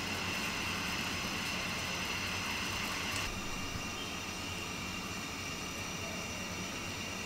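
Steady hiss of water simmering in a stainless-steel pot of baking soda bath on the stove. The sound changes a little about three seconds in, with its higher hiss dropping away.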